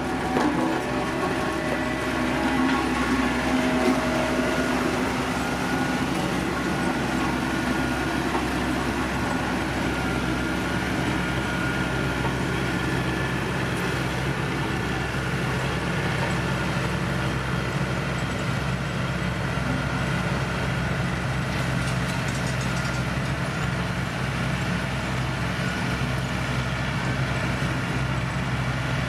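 Diesel engine of heavy road-construction machinery running steadily, a continuous low drone. Some higher tones in the first few seconds die away about five seconds in.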